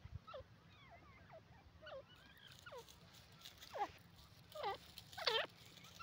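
Grey francolin calling: a run of short notes that each fall in pitch, starting soft and growing louder and fuller toward the end, the last few the loudest.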